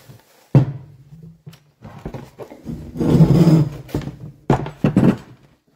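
Tools and the metal engine casing handled on a workbench as work starts on removing a scooter engine's kick-start cover: a sharp knock just over half a second in, a longer rasping, scraping noise about three seconds in, and two more knocks near the end.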